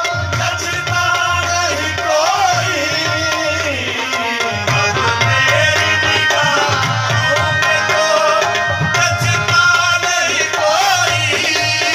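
Qawwali music: a wavering, ornamented sung line over a steady tabla rhythm.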